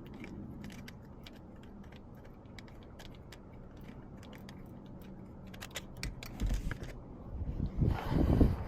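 Small gear being handled: scattered light clicks and rattles, then louder bumps and rustling from about six seconds in as the GoPro and its mount are picked up.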